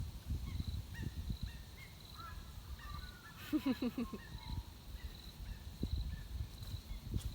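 Birds calling in the background: a faint high pip repeating evenly, scattered short chirps, and one louder warbling call about three and a half seconds in, over a low rumble.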